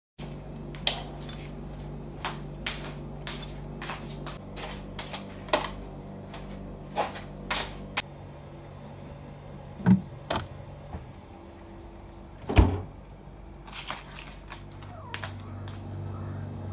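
Kitchen handling sounds: scattered sharp clicks and knocks of containers and food being taken from a fridge and moved about, over a low steady hum. A heavier low thud comes about twelve and a half seconds in.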